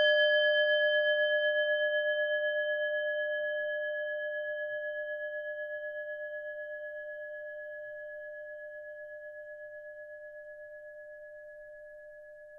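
A singing bowl ringing out after a single strike: several steady bell-like tones fading slowly, with a gentle regular wobble in loudness.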